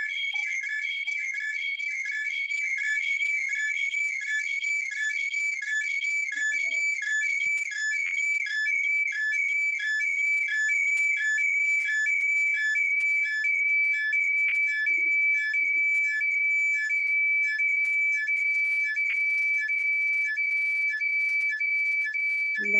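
Audio feedback on a video call: a steady, high-pitched whistle with a rapid, regular pulsing beep beneath it.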